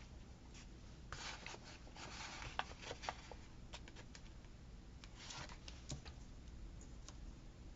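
Faint paper rustling with scattered light taps and clicks as sticker sheets and planner pages are handled and a sticker is pressed down.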